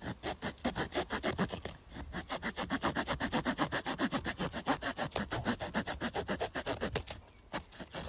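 Victorinox Swiss Champ's small folding wood saw cutting through a wooden stick, in quick, even back-and-forth strokes that cut on both push and pull. The strokes pause briefly about two seconds in and again near the end.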